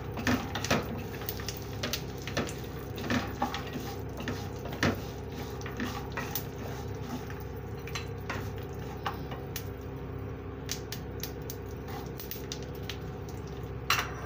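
Wooden spatula stirring almonds and seeds roasting in a little ghee in an aluminium kadhai: irregular scrapes and clicks of the nuts and spatula against the pan. A steady low hum runs underneath.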